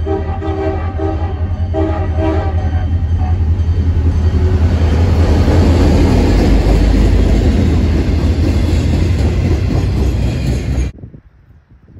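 CSX diesel freight locomotive sounding its air horn in several short blasts, then its engine running loud and the freight cars rumbling past close by. The sound cuts off suddenly about eleven seconds in.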